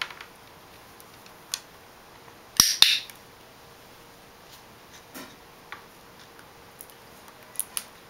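Scattered light taps and clicks from a Meyer's parrot moving and pecking on a tabletop board, with one loud, sharp double click about two and a half seconds in.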